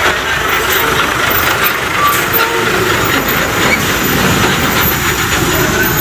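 Heavy diesel trucks passing close by: a steady, loud rumble of engine and rattling road noise.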